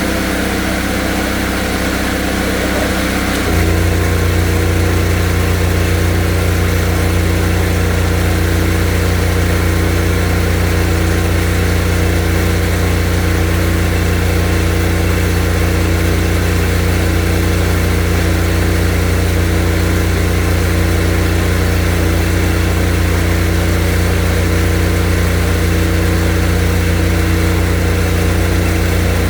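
Drain jetter's engine running steadily, stepping up to a louder, deeper note about three and a half seconds in and then holding steady.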